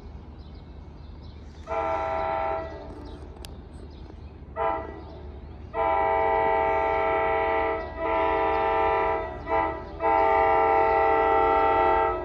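Locomotive multi-chime air horn sounding in the distance from a train not yet in sight. Two separate blasts come first, then long, long, short, long: the standard signal for a public grade crossing.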